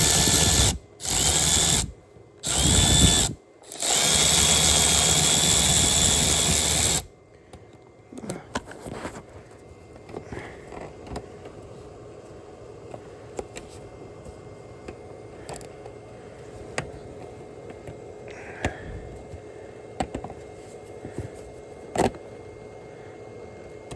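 Power drill running in short bursts, then one steady run of about three seconds that stops suddenly, driving a bolt in. After that, only faint scattered clicks and knocks of tool and parts handling.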